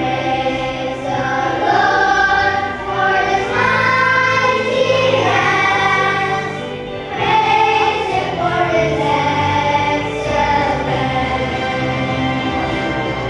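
A children's choir singing a gospel-style song together over instrumental accompaniment.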